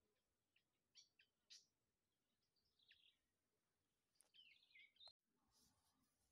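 Faint, scattered bird chirps and a short warbling phrase over near silence.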